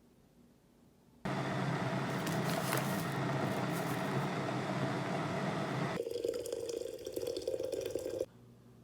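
Water running into a container. It starts suddenly a little over a second in, changes character about six seconds in, and cuts off suddenly near the end.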